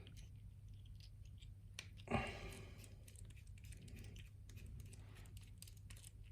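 Pin-tumbler challenge lock being taken apart by hand: faint light clicks and ticks of its small metal parts being handled, with one louder knock about two seconds in.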